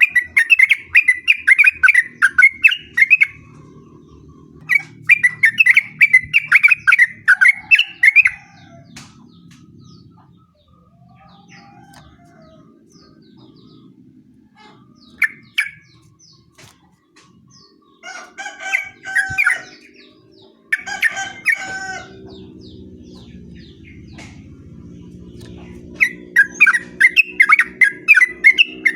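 Yellow-vented bulbul (trucukan) singing long, fast runs of bubbly notes, each run about three seconds, repeated several times with a few shorter phrases between.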